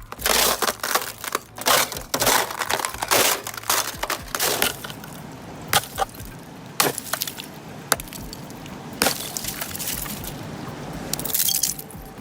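Ice cracking and breaking under pressure: a rapid run of sharp, irregular cracks and glassy clinks, then single sharp cracks a second or two apart, and another cluster of cracking near the end.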